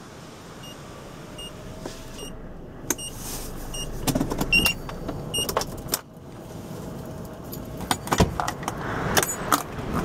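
A car's electric window motor running as the side window is raised against a dust-storm gale, stopping about six seconds in. Faint ticking about twice a second runs beneath, and strong gusts buffet the car near the end.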